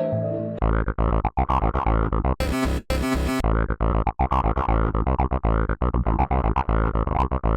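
Experimental synthesizer music made in a DAW: layered synth tones over a heavy bass, chopped into rapid stuttering fragments with abrupt cutoffs. Bursts of harsh, bright noise come in a few seconds in.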